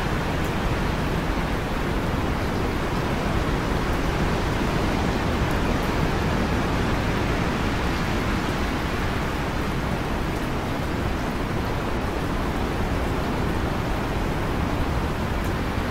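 Heavy rain falling steadily, an even hiss with no break or change.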